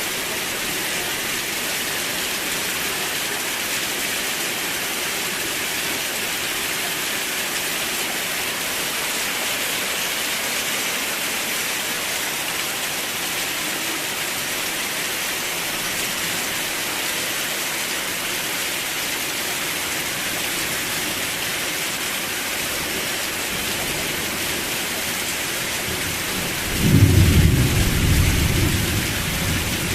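Steady heavy rain hissing, with a low rumble of thunder that breaks in near the end and slowly fades.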